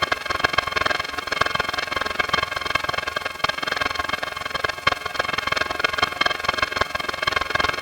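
Mystery talking-voices sound effect: a continuous jumble of garbled voices, with no words that can be made out, running at an even level.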